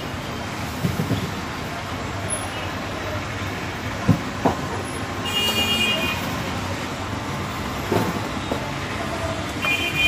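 Steady background traffic noise with a horn tooting briefly about five seconds in and again near the end, and a few dull knocks, the sharpest about four seconds in.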